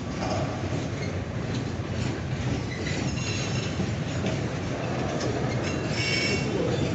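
Loaded freight wagons rolling past with a steady rumble and wheel clatter, and short high wheel squeals about three seconds in and again near the end.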